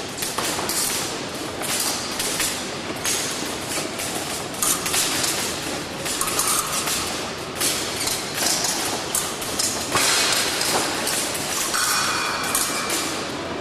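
Fencing hall during an épée bout: fencers' footwork thudding on the piste and blades knocking, many short impacts over a steady hall hubbub, with a few short tones sounding now and then.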